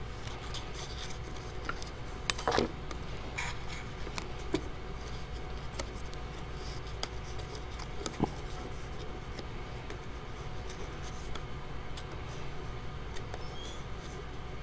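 Strips of watercolor paper being handled and slid into a paper weave: light scratching and rustling with scattered small clicks, the loudest rustle about two and a half seconds in.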